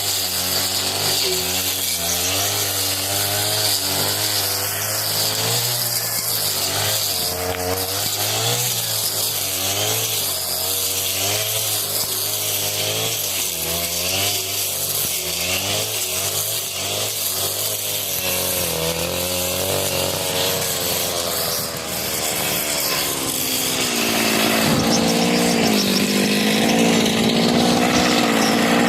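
40cc two-stroke brush cutter running at high throttle through thick grass, its engine note dipping and recovering about once a second as the blade bites in and swings on. Near the end the pitch holds steadier, higher and a little louder.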